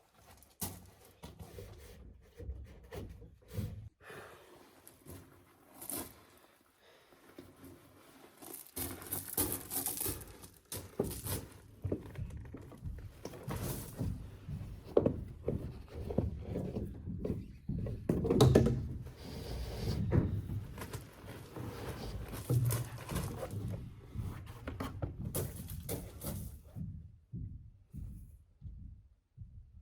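Irregular knocks, thunks and rustling from cable being pulled and handled through the house framing, sparse at first and busier from about nine seconds in, with the loudest thunk about halfway through.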